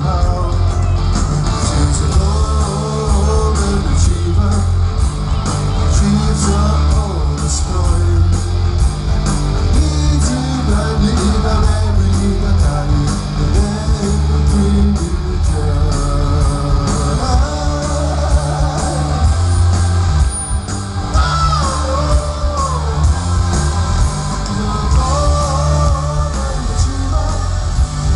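Live rock band playing through a festival PA: electric guitars, bass and drums with a steady beat.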